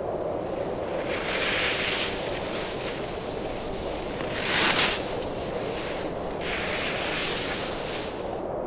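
Skis scraping and hissing across firm snow as a skier makes turns down a steep slope: three swells of hiss, the middle one the loudest and sharpest, over a steady wind rumble.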